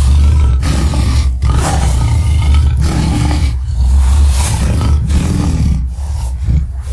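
Monster roar sound effect for a Tyrannotitan, mixed from Showa-era Toho kaiju roars and big cat growls: a string of loud, deep roars with short breaks between them, ending in a sudden cut-off.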